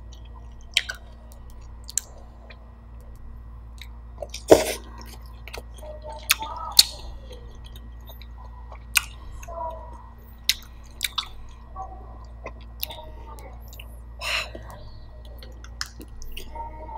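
Close-miked chewing of roast chicken: wet mouth clicks and smacks come irregularly, about ten sharp ones, the loudest about four and a half seconds in.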